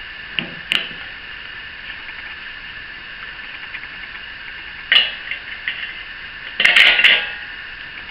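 Metal clinks and clatter of a wrench and socket working the bolt that mounts the wheel: two light clicks near the start, a sharper clink about five seconds in, and a longer rattling clatter around seven seconds.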